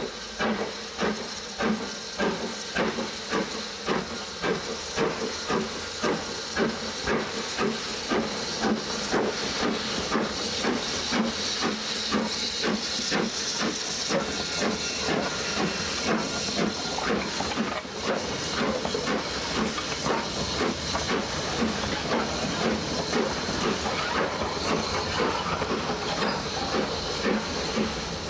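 BR Standard Class 9F 2-10-0 steam locomotive 92203 'Black Prince' working past under steam, its exhaust chuffing in a fast, even rhythm over a steady hiss of steam. In the second half the beat blurs into the rolling clatter of the coaches going by.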